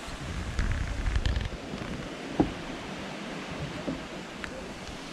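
Steady rushing water from the falls and pools, with wind buffeting the microphone in the first second or so and a single knock about halfway.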